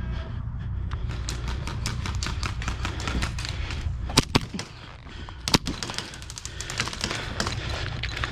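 Airsoft guns firing: many quick shots in irregular strings, with two louder cracks, one about four seconds in and one about five and a half. A steady low rumble runs underneath.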